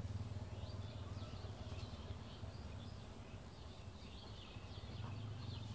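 Faint background ambience: a steady low hum with faint, scattered bird chirps.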